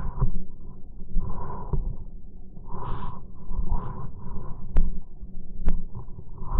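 Irregular swishing and rustling noises, roughly one a second, over a steady low rumble on the microphone, with two sharp clicks about a second apart in the second half.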